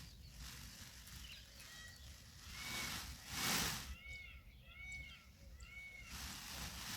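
Birds chirping outdoors, a run of four or five short arched chirps about four seconds in, over low background noise. A loud rush of noise comes just before the chirps.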